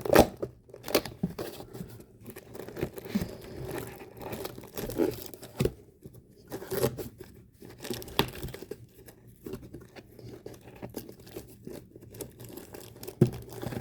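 A cardboard advent calendar door being torn open and the packaging handled: irregular tearing, scraping and crinkling noises.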